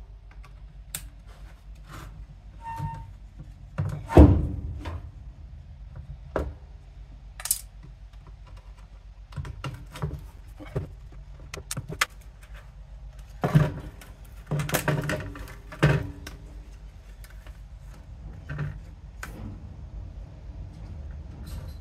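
A digital picture frame being taken apart with a screwdriver: irregular clicks, knocks and clatter of its plastic case and metal-backed screen panel. The loudest knock comes about four seconds in, with a cluster of knocks about two-thirds of the way through.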